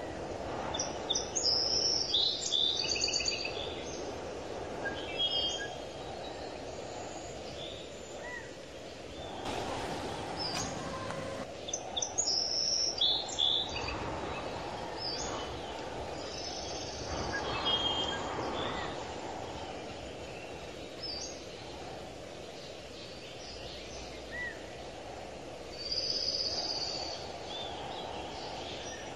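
Birds chirping now and then in short high calls, over a steady low background noise.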